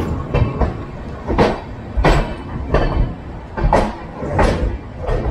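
Wheels of a Duronto Express coach running over rail joints and points, heard from the open doorway: a low rumble with about seven sharp clacks at uneven spacing.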